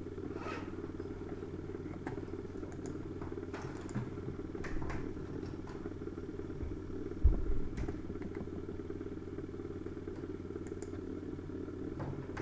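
A steady low hum, with a dull thump about seven seconds in and a few faint clicks.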